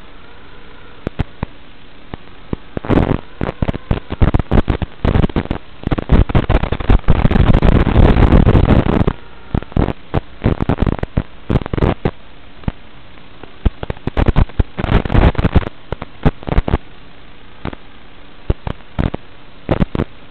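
Analog FPV video receiver's audio channel hissing and crackling in irregular bursts of static as the radio link breaks up. The crackle thickens about three seconds in, is heaviest and almost continuous for a few seconds around the middle, flares again about fifteen seconds in, then drops back to scattered clicks over the hiss.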